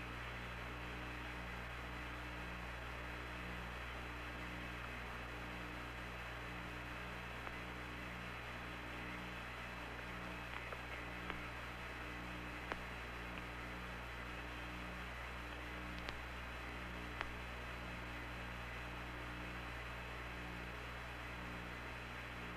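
Steady hum and hiss of an open air-to-ground radio link, with a low tone pulsing on and off about every second and a half and a few faint clicks.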